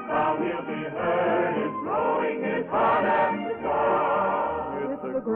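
A choir singing with orchestral accompaniment, the voices holding long notes with vibrato.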